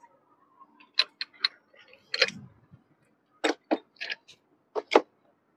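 Sharp metallic clicks from a hand-cranked truck lug nut opener as its handle is turned on a wheel nut, about ten in uneven pairs starting about a second in.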